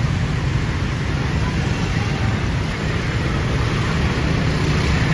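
Bus engine running with a steady low rumble under an even hiss of noise.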